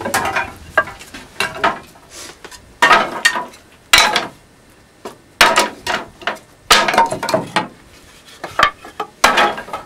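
Irregular sharp knocks and clinks of wood and metal at a steam locomotive's firebox, as firewood is handled at the firehole. They come in short clusters of a second or so, with brief pauses between them.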